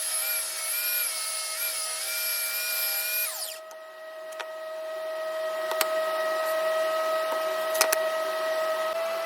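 An electric power tool's motor whines, then winds down a little over three seconds in, while a steady motor hum carries on. A few sharp knocks follow, two of them close together near the end.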